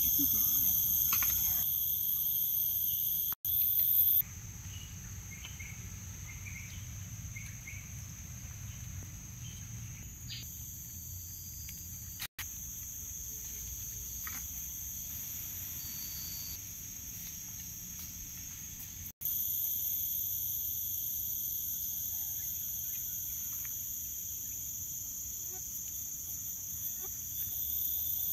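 Rainforest insect chorus: several steady, high-pitched buzzing drones layered together. The loudest of them fades out for a long stretch in the middle, leaving a softer hum, and swells back in later. The sound cuts out briefly three times.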